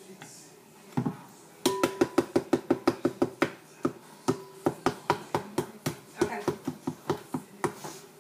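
A quick run of sharp, ringing taps on something hollow, about four a second, breaking into irregular taps after a few seconds.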